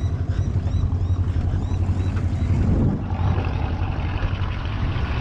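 Boat's outboard motor running, with strong wind buffeting the microphone, in a steady low rumble that eases slightly about three seconds in.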